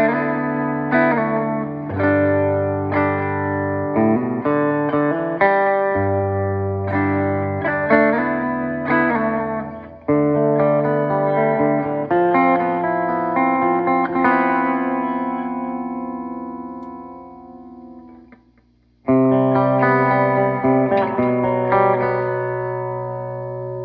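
PRS McCarty 594 electric guitar played through a PRS Archon 50 valve amp head and a cab loaded with Celestion V30 speakers, in a fairly clean, only lightly driven tone. Chords and single notes are picked in a steady run, then left to ring and fade almost to nothing; about 19 seconds in, a new chord is struck and left to sustain.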